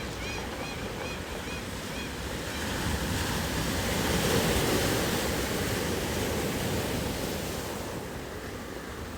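Pacific surf on a beach of rounded stones: a wave swells in about three seconds in, is loudest around the middle, then eases off as the backwash drags the pebbles in a low, rolling rattle. A series of short, high chirps sounds over it in the first two seconds.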